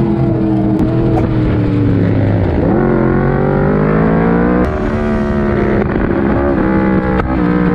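Yamaha sportbike engine heard from on board, accelerating with its pitch climbing, then dropping sharply at a gear change about four and a half seconds in before rising again.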